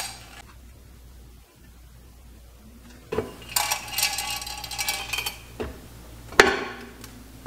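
Metal engine parts clinking and rattling as they are handled, with a quiet stretch at first, a rattle from about three and a half seconds in, and one sharp metallic clank near the end.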